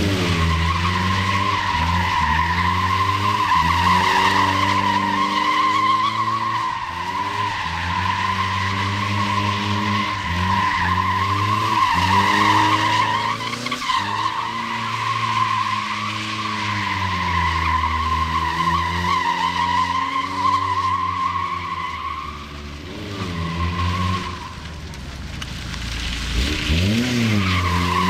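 A sedan drifting on tarmac: a steady tyre squeal over the engine revving up and down. The squeal fades for a few seconds near the end while the engine revs alone, then starts again.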